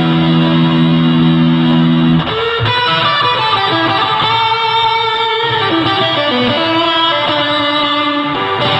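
Electric guitar played through a custom three-in-one fuzz and reverb pedal: a held chord rings for about two seconds, then gives way to a line of sustained single notes.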